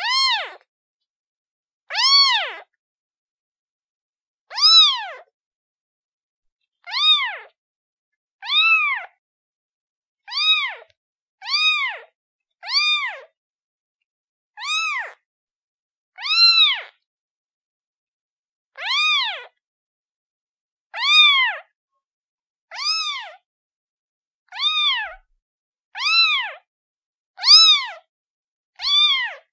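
Kitten meowing over and over, about seventeen short high-pitched meows, each rising then falling in pitch, one every second or two.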